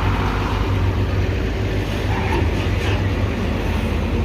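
Hino truck's diesel engine running with a steady low rumble.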